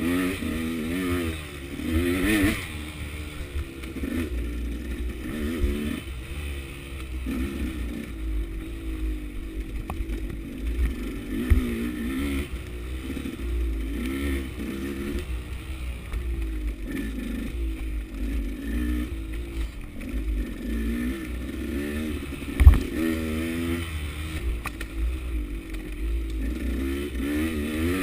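KTM 200 two-stroke dirt bike engine revving up and down again and again on a wooded trail, over a low rumble, with a couple of sharp knocks, the loudest late on.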